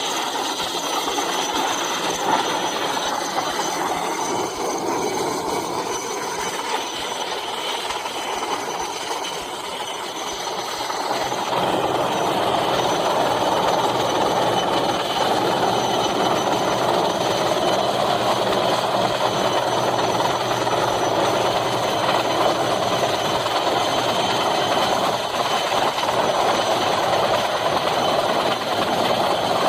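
Helicopter engine and rotor running steadily, with a high turbine whine over the rotor noise; the sound gets louder about eleven seconds in.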